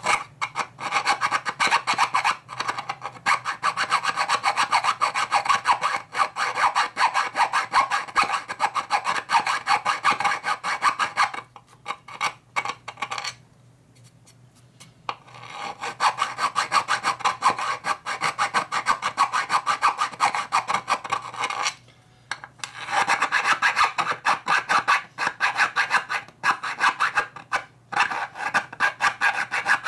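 Hand file rasping on a metal part in rapid back-and-forth strokes, with a pause of a few seconds about halfway through and a brief one about two-thirds in.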